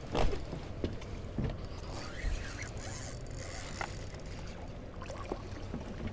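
Boat motor running with a low steady hum, with scattered short knocks (the loudest about a quarter second in) and water splashing as a hooked redfish thrashes at the surface near the end.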